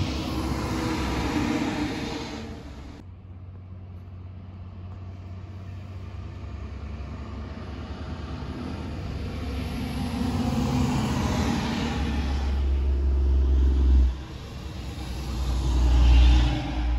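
Heavy diesel trucks driving past on a road, one after another: a coal-hauling semi dump truck, then a tanker truck. The low engine rumble and tyre noise swell as each truck nears and fade as it goes, breaking off sharply about three seconds in and again near the end. The loudest pass comes near the end.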